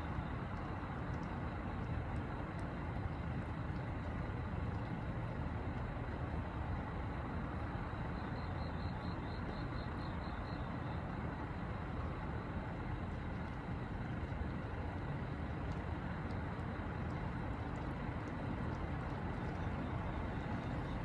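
Steady low outdoor rumble, even throughout, with a faint, rapid high-pitched pulsing for about two seconds near the middle.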